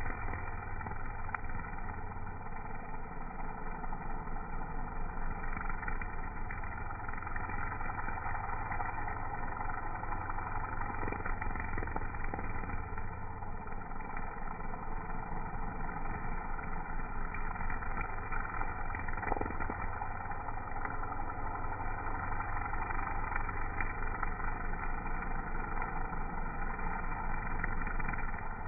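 String trimmer running steadily, its spinning line cutting grass on a ditch bank.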